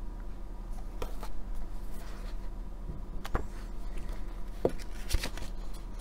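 Paper magazines being handled and set down: a few scattered rustles and light taps, over a steady low hum.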